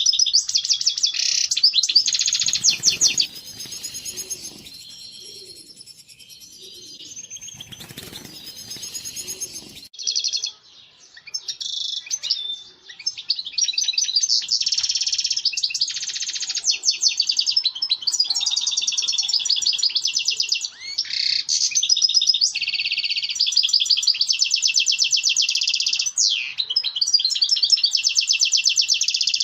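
European goldfinch singing its rapid, twittering breeding song. The song breaks off about three seconds in and picks up again around ten seconds, then runs on without a break.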